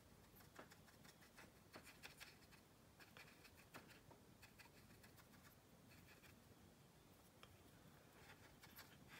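Near silence, with faint, irregular scratches and light taps of a small paintbrush working over a plastic model's surface as weathering paint is blended in.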